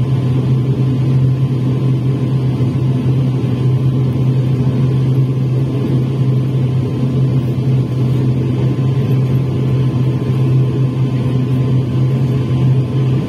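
Steady drone of an ATR 72 turboprop's engine and propeller heard inside the passenger cabin at taxi power, with a strong low hum and a faint thin steady tone above it.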